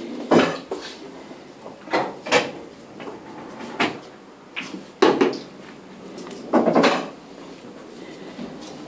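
A handful of irregular knocks and thuds, about six over nine seconds, with a low background between them.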